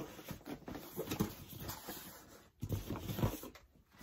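Rustling and soft irregular knocks of books and packing being handled in a cardboard shipping box while it is searched through.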